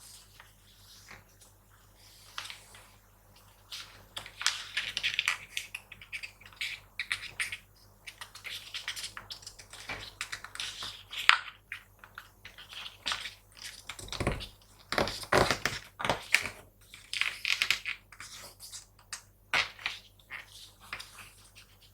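A sheet of paper being folded and creased by hand: irregular crinkling, rustling and sharp crackles, with a few dull thumps about fourteen to sixteen seconds in.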